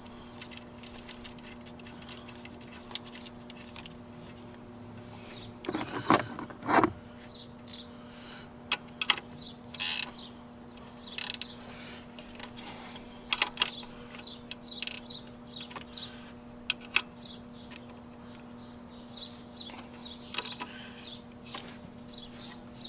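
Light clicks and taps of hand work at the alternator's back battery terminal as the new 10 mm nut is threaded onto the stud, over a faint steady hum. The loudest sounds are two brief pitch-gliding sounds about six and seven seconds in.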